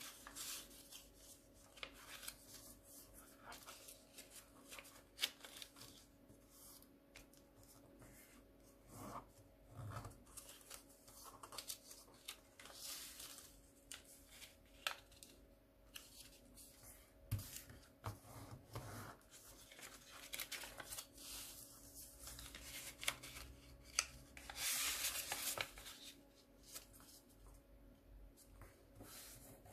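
A sheet of paper being folded and creased by hand: faint, irregular rustling and crinkling, with short sharp scrapes as the folds are pressed down.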